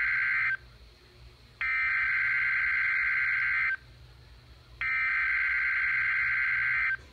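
NOAA Weather Radio SAME alert header: loud bursts of warbling digital data tones, each about two seconds long and a second apart, carrying the coded alert for a severe thunderstorm watch. The first burst ends just after the start, and two full bursts follow.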